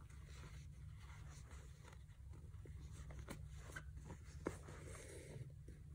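Faint rustling and scratching of needle and thread being drawn through a padded winter jacket's fabric as it is hand-stitched, with a few soft ticks and one sharper click late on, over a low steady hum.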